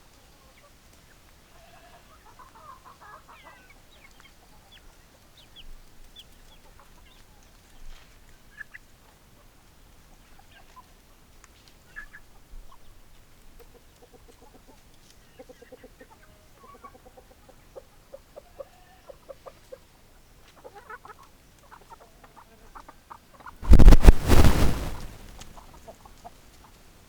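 Domestic chickens clucking softly in short runs of quick pulses, with scattered higher chirps. Near the end, a sudden loud noisy burst lasting under two seconds drowns everything out.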